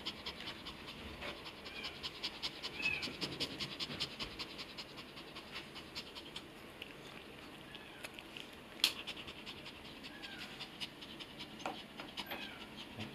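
Long-coat Chihuahua panting quickly and steadily, with one sharp click about nine seconds in.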